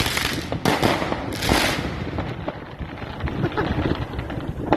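Fireworks going off: a rapid run of bangs and crackling bursts, heaviest in the first two seconds, then easing to scattered pops over a low rumble.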